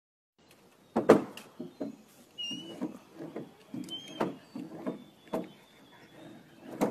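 A long stick carried by a dog knocking against the wooden railings of a footbridge: four sharp wooden knocks, the loudest about a second in. Softer thumps of steps on the boards come at a roughly even pace between them.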